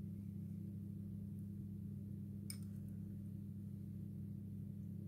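Steady low electrical hum, with one faint click about two and a half seconds in.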